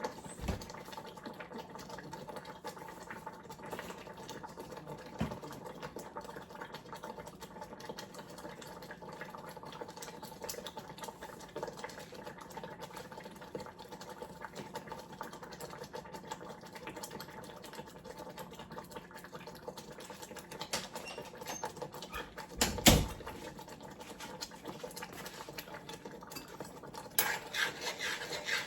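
A steady motor hum runs under scattered light clicks of kitchen work. A single loud knock comes about two-thirds of the way through, and a clatter of utensils and dishes starts near the end.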